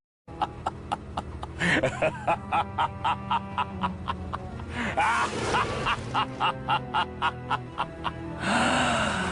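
Short music sound-effect clip with a steady ticking, about three ticks a second, and a few brief squeaky pitch glides over it, ending in about a second of noise.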